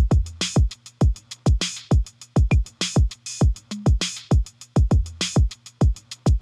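Background electronic music with a steady drum-machine beat: punchy kick drum hits about twice a second, hi-hat ticks between them and a low bass line.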